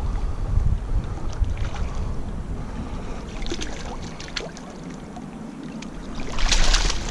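Wind rumbling on the microphone over moving river water, with scattered small splashes and ticks and a louder burst of splashing near the end.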